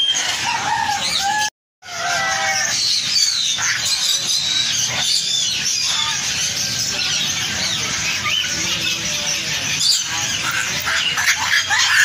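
A dense chorus of many caged birds calling at once: overlapping chirps, whistles and squawks. The sound cuts out briefly about a second and a half in.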